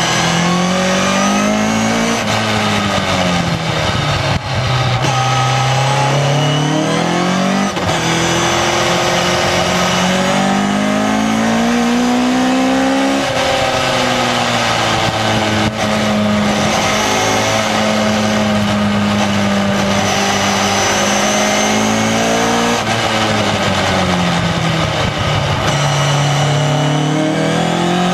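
2-litre Ford Duratec four-cylinder engine of an MK open sports car driven hard on track. Its pitch climbs under acceleration and falls away for corners, with sudden drops in pitch at upshifts about 8 and 13 seconds in.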